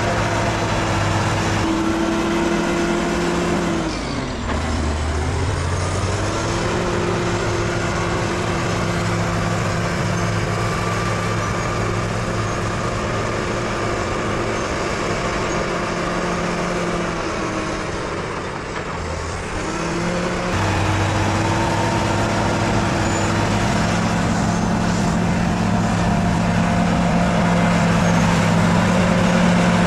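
Bulldozer's diesel engine running steadily at high revs, its pitch sagging briefly and climbing back twice, about four seconds in and again near the middle.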